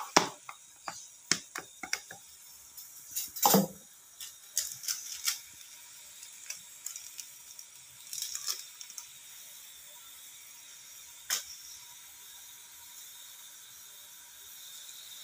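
Semur sauce simmering in a wok with a faint, steady sizzle. Scattered sharp clicks and knocks sound over the first few seconds, the loudest about three and a half seconds in, and there is one more click near the eleven-second mark.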